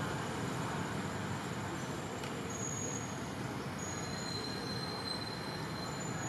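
Steady outdoor background hiss with a few faint, thin, high whistling tones that come and go after about two and a half seconds in.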